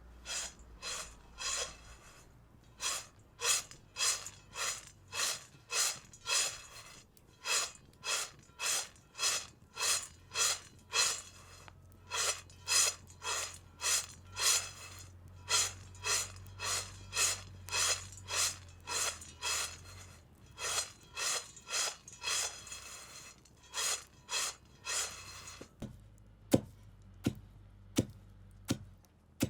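Coffee beans being stirred and scraped in a roasting pan, a rhythmic rasping about two strokes a second. About 26 seconds in, the scraping stops and a few sharp knocks follow.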